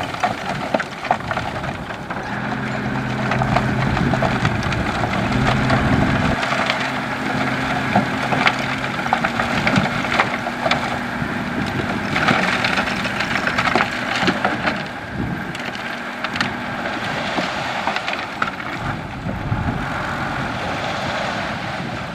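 Heavy construction machinery at work: a diesel engine's steady low hum under a continuous crackling rush, typical of gravel sliding and being spread. The engine hum fades out a few seconds before the end while the crackling noise carries on.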